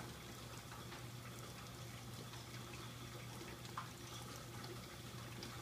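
Light rain falling and dripping onto a wet concrete walkway: a faint even hiss with scattered drip ticks, one sharper tick nearly four seconds in, over a steady low hum.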